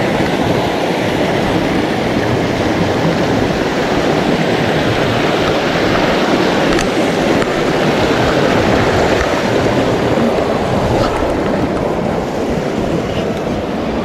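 Small mountain stream rushing over a rocky cascade: a loud, steady rush of water.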